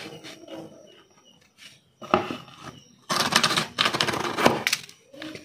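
Manual HPL edge trimmer drawn along the edge of a high-pressure laminate sheet, its blade shaving off the overhanging laminate with a rapid clicking, rasping scrape. There is a short scrape about two seconds in, then a longer one of nearly two seconds starting about three seconds in.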